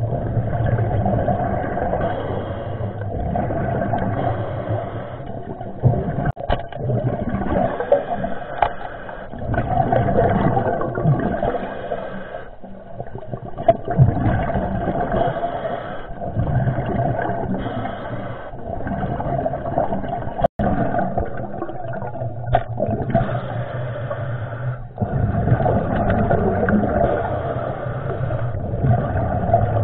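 Muffled underwater water noise, rushing and gurgling, swelling and fading every few seconds, with a few sharp clicks.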